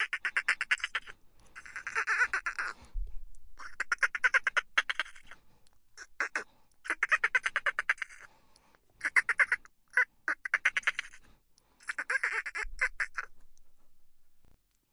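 Dolphin chittering: a string of quick bursts of rapid clicking pulses, each burst lasting from a fraction of a second to about a second and a half, with short pauses between.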